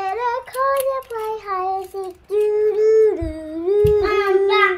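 A young child singing long, high held notes without clear words, sliding from one pitch to the next. Two short low bumps come in the middle.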